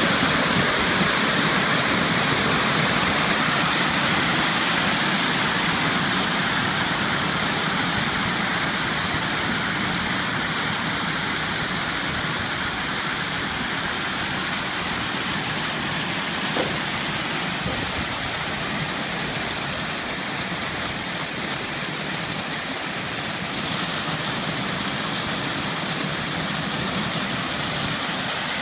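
A mass of 4-inch black plastic shade balls pouring out of a trailer and clattering down a reservoir's lined bank into the water: a dense, steady clatter that eases slightly over time.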